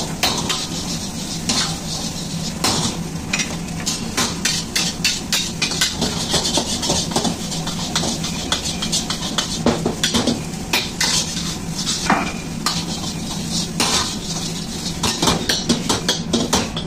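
Egg fried rice being stir-fried in a steel wok over a gas flame: a metal ladle clanks and scrapes against the wok in quick, irregular strokes while the rice sizzles. A steady low hum runs underneath.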